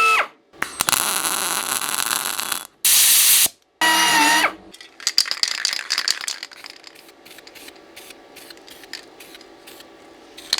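Power tools making steel brackets in a workshop: a motor's whine, two stretches of harsh hissing noise, a second whine about four seconds in, then a long run of irregular clicks and ticks.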